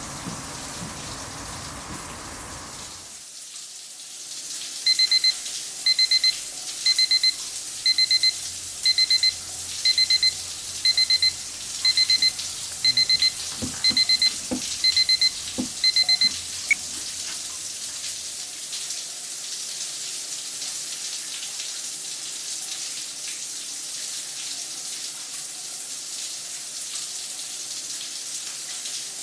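Electronic bedside alarm beeping in quick sets of four high pips, about once a second for around a dozen sets, then cut off suddenly as it is switched off by hand, with a few soft knocks on the nightstand as it is reached for. A steady hiss runs underneath.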